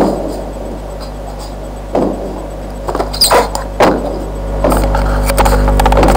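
Hands handling a headphone box close to the microphone: scattered bumps, rubs and scrapes, over a steady low electrical hum.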